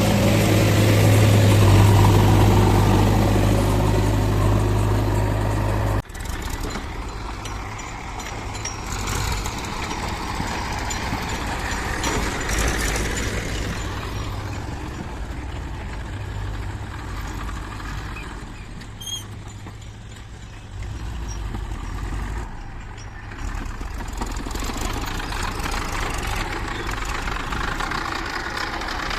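Heavy diesel machinery engine running loud with a steady low hum. About six seconds in it drops abruptly to a quieter engine sound that rises and falls.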